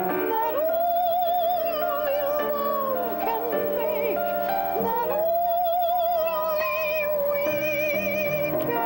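A woman singing with piano accompaniment. She holds two long notes with a wide vibrato, the first starting about half a second in and the second about five seconds in, over sustained piano chords.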